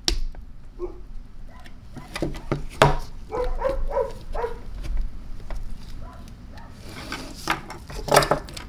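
Steel pocket screwdriver prying and scraping against the tabs inside an Ingersoll-Rand 2131 air impact wrench's handle to release the throttle valve assembly: irregular clicks, knocks and scrapes, with one sharp knock about three seconds in.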